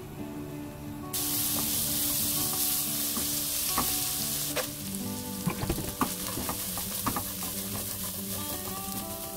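Minced garlic sizzling in hot oil in a nonstick wok, the sizzle starting suddenly about a second in, stirred with a silicone spatula. About halfway through, dried shrimp are stir-fried in the pan, with scattered scrapes and light clicks over the frying.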